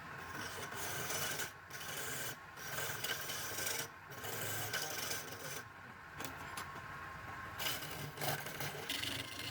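Palm wood spinning on a woodturning lathe and being scraped as it is shaped, with the lathe's low hum beneath. The scraping is steady, with a few short breaks and a longer pause about six seconds in.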